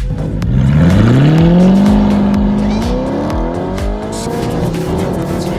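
Modified Audi R8's 4.2-litre V8 with an aftermarket exhaust revving: the pitch rises about a second in, holds briefly, then climbs steadily again. Background music with a steady beat plays alongside.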